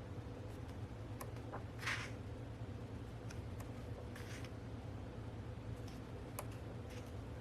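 Pages of an album photobook being handled and turned: two short soft page swishes, about two and four seconds in, with a few small clicks, over a steady low hum.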